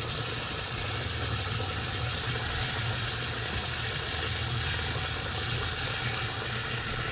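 An engine running steadily at idle, a constant low hum with a noisy rumble over it.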